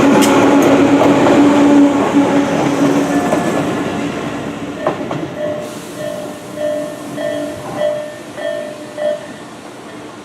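Tobu Kameido Line train running over a level crossing: a loud rumble with a few clacks of wheels over rail joints, fading over the first few seconds as it moves away. Under it the crossing's warning alarm dings steadily, about every half second, and stops near the end once the train has cleared.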